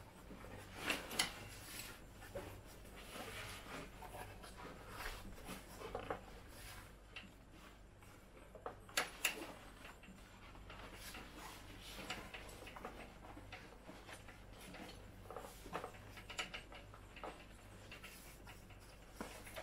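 Fabric rubbing and scattered light clicks and knocks from a paramotor harness being handled as a seatboard is worked into its seat, with a few sharper knocks about a second in and again about nine seconds in.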